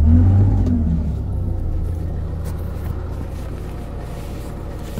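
Åkerman H3MB excavator's diesel engine revving briefly as the throttle is opened: the pitch rises and falls back within about a second. It then runs on steadily, slowly getting quieter.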